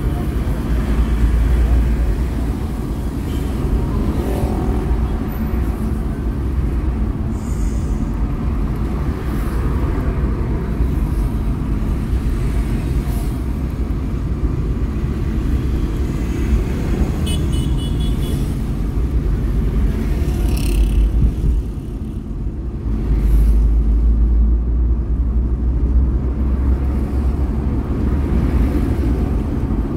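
Moving car: steady low rumble of engine and road noise, growing louder in the last third, with brief sounds of surrounding traffic.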